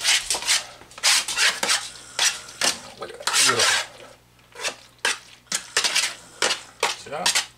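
A spoon stirring macaroni and cheese sauce in a metal baking pan, scraping and clinking against the pan in quick, irregular strokes.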